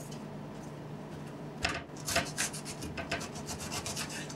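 Kitchen knife cutting cabbage on a cutting board. After a quiet first second and a half comes a quick, irregular run of crisp crunching cuts.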